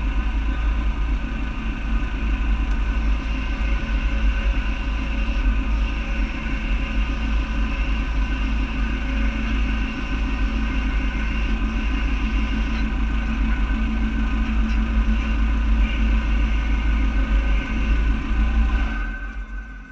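Game-drive vehicle's engine idling steadily, a deep running sound with a steady hum over it; it stops near the end.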